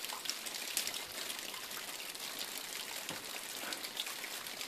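Water trickling and dripping off a frozen waterfall: a steady hiss dotted with many small, irregular drip ticks.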